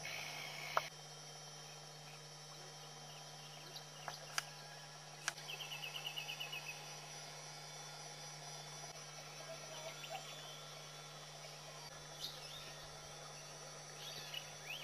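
Faint bush ambience with insects and scattered bird calls over a steady low hum. A little over five seconds in, a bird gives a quick rattling run of about ten notes. A few sharp clicks and short chirps come here and there.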